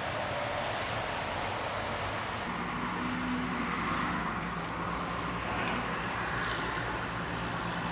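Steady background noise of road traffic. It changes character about two and a half seconds in, where a low hum comes in, and a few brief faint clicks sound near the middle.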